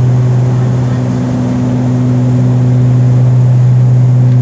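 Airliner cabin noise in flight: the engines' deep, steady hum under a constant rush of air noise.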